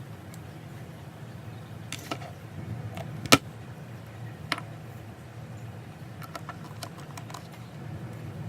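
Small tools and the iPhone's parts being handled during reassembly: a few light clicks and taps, with one sharper click about three seconds in and a run of small ticks near the end, over a low steady hum.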